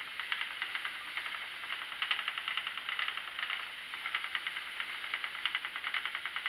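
Schacht Sidekick spinning wheel running steadily as it is treadled, its spinning flyer and bobbin giving a fast, even ticking with a soft whir while chain-plied merino yarn is drawn on.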